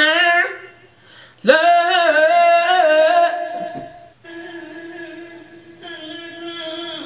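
A woman's unaccompanied singing voice: a short sung phrase, a pause of about a second, then a loud held note with quick turns in pitch, a vocal run, followed by a quieter, steadier sung tone.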